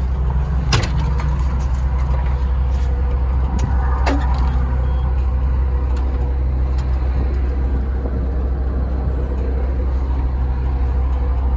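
Kobelco SK200SRLC excavator's diesel engine idling steadily, with a deep hum, heard from inside the cab. A couple of sharp clicks sound about a second in and about four seconds in.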